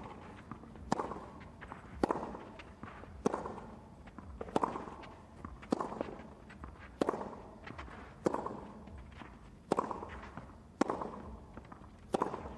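Tennis ball struck back and forth by racket strings in a baseline rally: a sharp hit about every second and a bit, each trailing off in a short echo.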